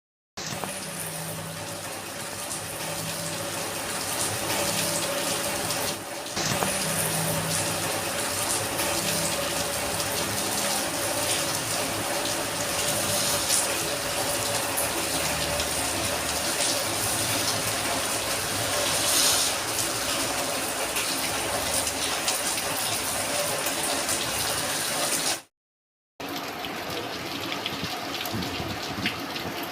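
Steady rain, with drops pattering densely onto hard surfaces such as a floor, plastic and a metal vessel. It cuts out for under a second about 25 seconds in, then carries on.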